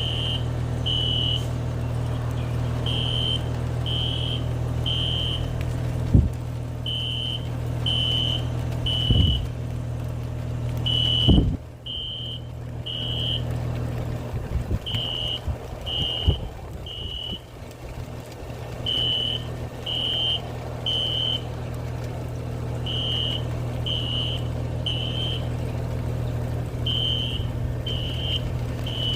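Building fire alarm sounding in the three-beep evacuation pattern: three high beeps about a second apart, a pause, then three more, over and over. It is a false alarm set off by water dripping onto the main fire alarm panel. A vehicle engine idles underneath, with a few thumps in the first half.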